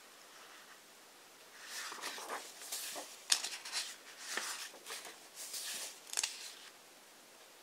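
Pages of a large hardcover book being turned one after another: paper swishing and rustling under the hand, with two sharp flicks as pages snap over.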